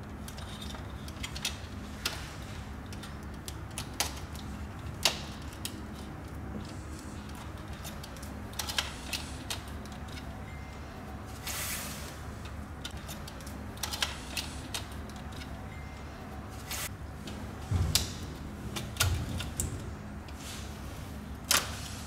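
Scattered light clicks and ticks of wires and plastic being handled at a breaker panel's green earth terminal block, as earth conductors are pushed into it, over a steady low hum. A brief rustle comes about halfway through and a few soft knocks near the end.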